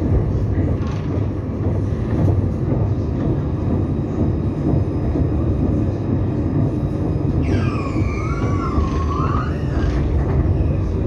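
Tram running, heard from inside the car: a steady low rumble of wheels on rails, with a high wavering squeal lasting about two seconds in the second half.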